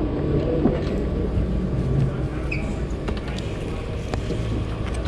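Steady low rumble and hum of a large indoor go-kart hall, with scattered knocks and clicks and background voices.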